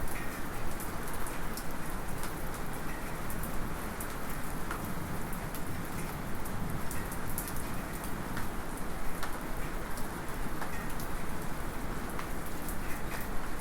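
Light rain falling steadily, with many small drops ticking one by one through it, among them a small metallic drip.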